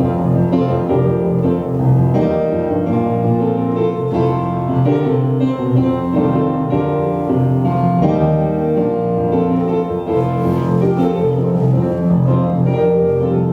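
Instrumental piano music.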